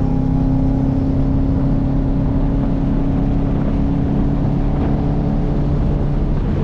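Subaru EJ205 turbocharged flat-four engine running at steady cruising revs, a constant drone over road noise.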